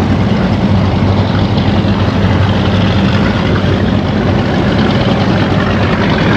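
Motorboat engines running steadily at low speed, a loud, even low hum with no change in pitch.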